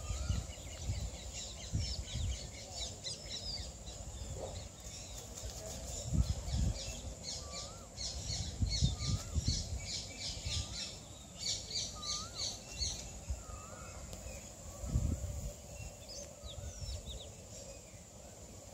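Small birds chirping in quick runs of short high notes, with another bird repeating a short hooked whistle about once a second midway through. Low rumbles of wind or handling on the microphone come and go underneath.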